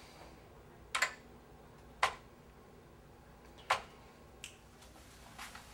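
A computer keyboard key tapped slowly by one finger: single sharp clicks, spaced unevenly a second or more apart, three loud and then two fainter ones.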